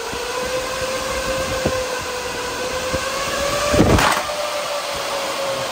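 Delta QFR1212GHE 120 mm high-speed cooling fans running together: a steady rush of air with a humming tone that rises slowly in pitch, then eases back a little. About four seconds in comes a brief loud knock.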